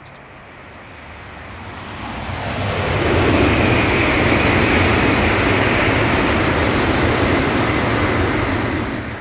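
Tokaido Shinkansen bullet train passing at speed along a concrete viaduct: a rush of noise with a low rumble that builds over about three seconds, holds steady, and starts to fall away near the end.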